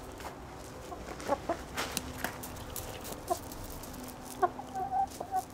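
Ex-battery laying hens clucking, with short calls scattered through and a longer drawn-out call near the end.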